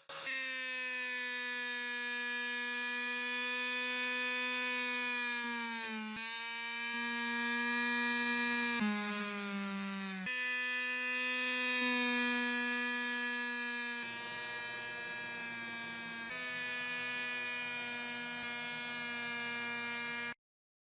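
Small electric power tool motor running with a steady high hum. Its pitch sags briefly twice, as the motor slows under load against the work, then recovers. The sound comes in several cut segments and stops abruptly near the end.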